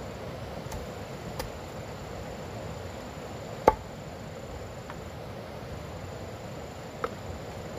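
A handful of sharp, irregular knocks, the loudest about halfway through and another near the end, over a steady background hiss.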